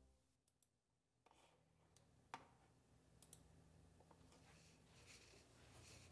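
Near silence: faint room tone with a few soft, sharp clicks, the clearest one about two seconds in.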